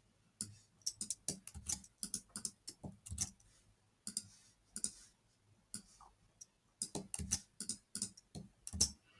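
Typing on a computer keyboard: quick, irregular key clicks in short runs, broken by brief pauses.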